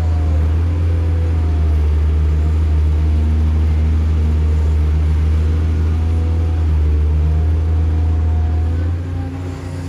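Heavy construction machinery's diesel engine running with a steady deep drone, with faint shifting tones above it and a slight dip in level near the end.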